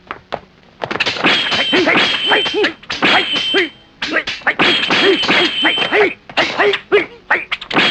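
Kung fu fight sound effects: a rapid flurry of punch and kick impacts mixed with short pitched yelps, starting about a second in and running in two bursts with a brief break just before the middle.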